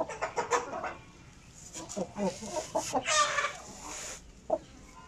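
Chickens clucking: several short calls, the loudest about three seconds in.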